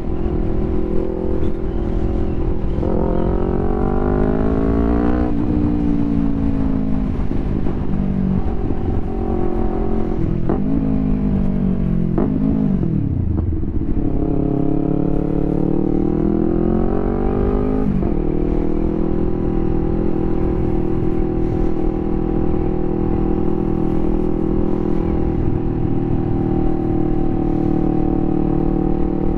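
2021 Yamaha YZF-R3's parallel-twin engine through an Akrapovic full exhaust, heard from the rider's seat. Revs climb and drop at gear changes, fall away low about halfway through, then pull up to another shift and settle into a steady cruise.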